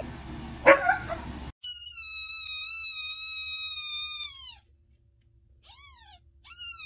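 Newborn kitten mewing: one long high-pitched cry that falls away at its end, then two short mews. Before the cries comes a second and a half of noise with one short, sharp, loud sound.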